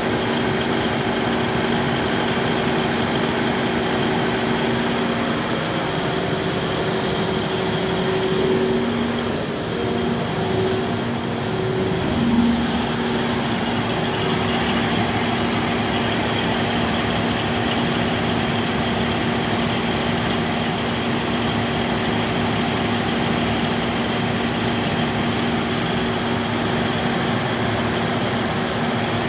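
Cummins KTA50-G8 V16 turbocharged diesel generator engine running at steady speed: a loud even drone with steady humming tones on top, briefly swelling about twelve seconds in.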